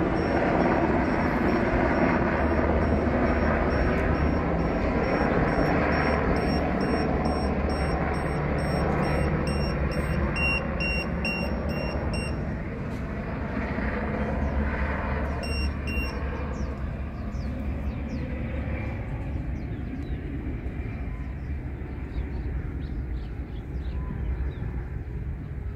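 Black Hawk-type military helicopter flying overhead, its rotor and turbine running as a steady, heavy drone that eases off gradually in the second half as it moves away.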